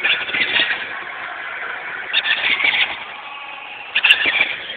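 ATV running and driving, with louder surges three times, heard as distorted, muffled phone audio.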